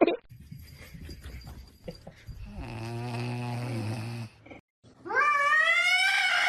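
Snoring: one long low snore, then about five seconds in a loud drawn-out call that rises in pitch and holds.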